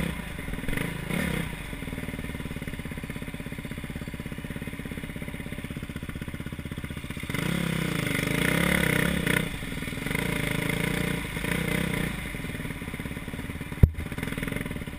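KTM 350 SX-F motocross bike's single-cylinder four-stroke engine rising and falling with the throttle: low and steady for several seconds, then revving hard about halfway through. A single sharp knock near the end.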